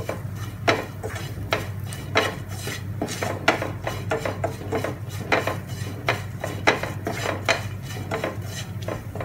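Wooden spatula stirring and scraping browned onions and spice powders around a nonstick frying pan, in repeated strokes about once or twice a second, with a light sizzle. The spices are being sautéed on a low flame until their raw smell cooks off.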